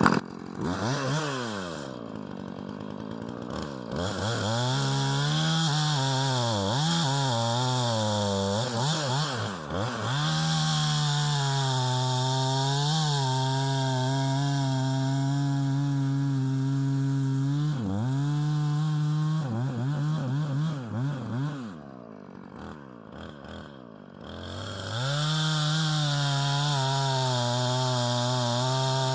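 Husqvarna two-stroke chainsaw bucking a downed ash log. It revs up and down in the first several seconds, then holds at steady high revs under load while cutting. Around 22 seconds in it drops back to idle for a couple of seconds, then revs up and cuts again.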